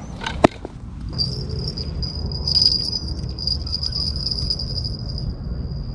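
Crickets trilling steadily at a high pitch, starting about a second in, over a low rumble. A single sharp click comes just before the trilling begins.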